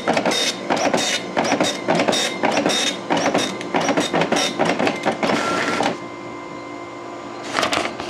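Okidata Pacemark 3410 9-pin dot matrix printer printing a test page: its impact print head rattles across the line in quick short passes, about three a second. It stops about six seconds in, leaving a quieter steady hum, and makes one more short pass near the end.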